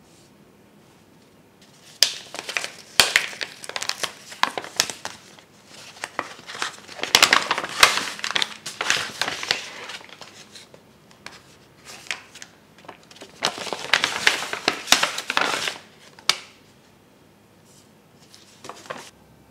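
Food packet's paper outer bag and clear plastic inner pouch crinkling and rustling in irregular bursts as the packet is opened and the pouch pulled out. The crinkling stops about three-quarters of the way through, with a few faint rustles near the end.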